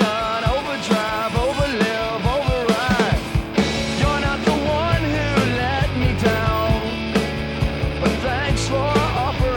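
Rock song with a singing voice over drums; a heavier bass line comes in about three and a half seconds in.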